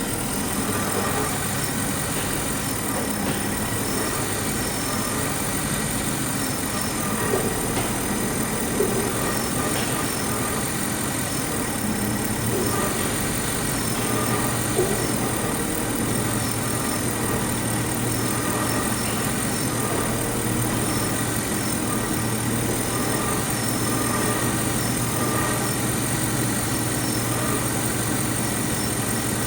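Car engine idling steadily with electrical loads switched on, so the alternator is working under load; a low hum grows stronger about halfway through.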